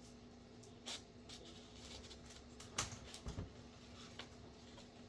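Sheet of paper being trimmed with scissors and handled, scattered light rustles and snips. The sharpest click comes a little under three seconds in, followed by a short low thump.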